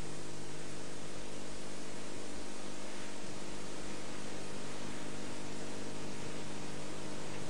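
Steady hiss with a low electrical hum, the background noise of the recording, with no voice.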